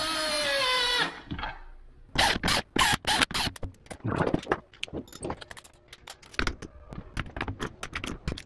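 Cordless drill-driver spinning a transmission case bolt down, its motor whine falling slightly before it stops about a second in. Then a run of irregular sharp metal clicks and clacks of hand tools being handled.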